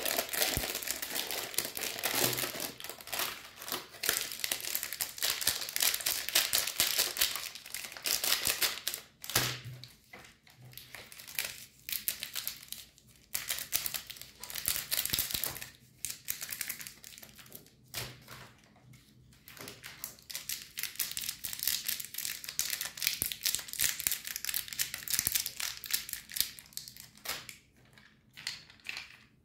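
Plastic food wrapper crinkling in the hands as a packaged donut is squeezed and turned. After about nine seconds this gives way to shorter, scattered crinkles and rustles of foil candy wrappers.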